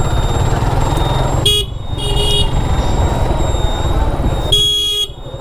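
Motorcycle engine running at low speed, with a vehicle horn honking briefly about a second and a half in and again, longer, near the end.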